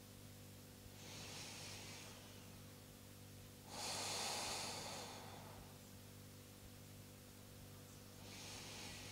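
A person taking slow, deep breaths close to the microphone, as in closing deep breathing at the end of a yoga practice. There is a soft breath about a second in, a longer and louder one around four seconds in, and another near the end.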